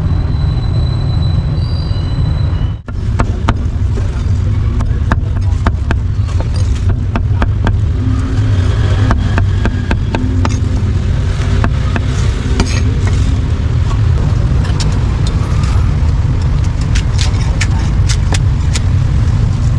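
A cleaver chopping on a thick wooden chopping board: irregular sharp knocks that start about three seconds in. Underneath is a steady low rumble of street traffic.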